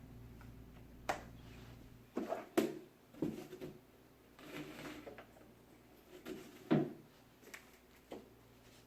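Plastic toy track pieces being handled and fitted together: scattered clicks and knocks at irregular times, with a soft rustle in the middle.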